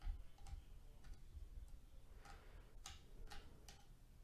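Faint sharp clicks and ticks of a small screwdriver and screws as the two hard-drive screws of an Acer C710 Chromebook are taken out: about five separate clicks, most in the second half, with a few soft low bumps of handling near the start.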